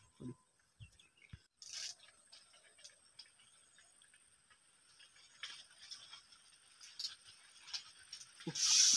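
Quiet handling noise from a spinning rod and reel: faint scattered clicks and scrapes, a short rustle about two seconds in, and a louder rustle near the end.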